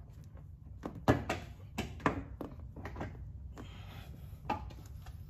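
A series of short knocks and clicks, about seven over four seconds, as the plastic front bumper cover of an Infiniti G37 coupe is pushed and pressed by hand at its seam with the fender and headlight, to work it into alignment. A steady low rumble lies underneath.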